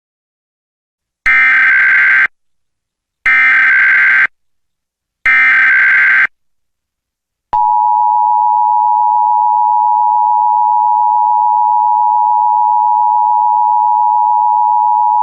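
Emergency Alert System alert sequence for a Required Monthly Test: three bursts of SAME header data, each about a second long and about two seconds apart. Then, a little past halfway, the EAS two-tone attention signal (853 and 960 Hz) starts and holds steadily for about eight seconds.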